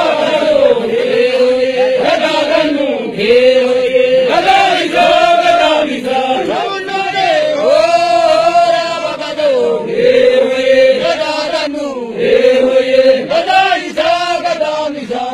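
A group of men chanting Oromo geerarsa, the traditional heroic song, many voices together in rising and falling phrases of a few seconds each, with short dips between.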